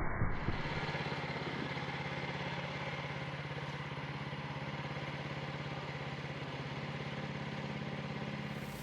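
Sawmill engine running steadily with an even, rapid pulse.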